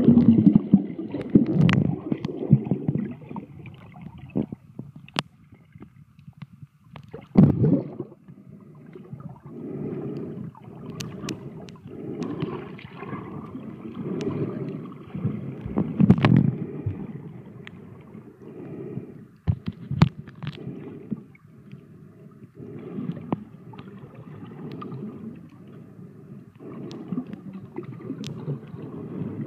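Underwater water noise picked up by a submerged camera: low gurgling and bubbling swells recurring about every two seconds, with scattered sharp clicks.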